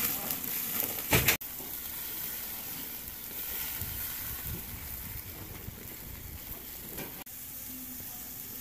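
Hamburger patties, then sausages, sizzling over a charcoal grill, a steady hiss. A brief loud noise comes about a second in, and the sound breaks off abruptly twice.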